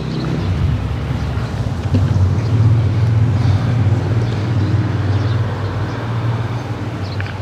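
Low, steady drone of a motor vehicle's engine running nearby. It swells about two seconds in and slowly eases off.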